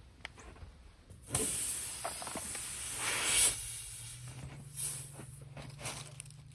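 Compressed air from an air compressor's hose hissing loudly at a plugged tractor tire, in a long burst of about two and a half seconds starting about a second in. Shorter hisses follow, over a steady low hum.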